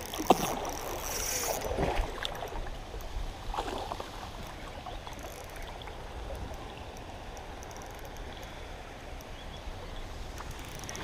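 Shallow creek water running steadily over a riffle, with a few knocks and rustles in the first few seconds.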